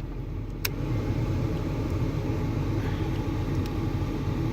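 A sharp click about two-thirds of a second in, after which the steady rush of the car's HVAC blower fan grows louder and holds, over a steady low rumble.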